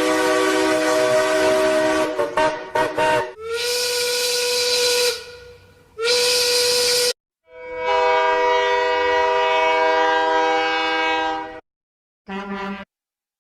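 A run of cartoon train whistle and horn sound effects, cut one after another. First a long chord of several notes that breaks up and stutters near the end. Then two shorter steam-whistle blasts with a hiss of steam, a second long chord that cuts off suddenly, and a brief final toot.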